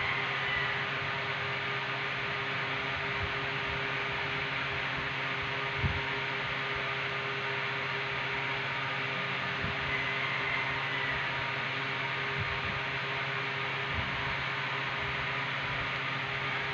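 A steady hiss with a low, even hum, and a few soft low bumps, the clearest about six seconds in.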